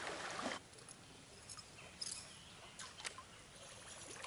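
Quiet creek-side ambience. A brief rush of water noise stops abruptly about half a second in, leaving faint scattered high chirps and a few light ticks.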